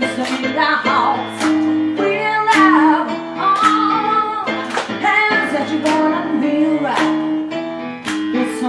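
A woman singing a soul song live into a handheld microphone, her voice gliding up and down over held keyboard chords. Sharp percussive hits keep time throughout.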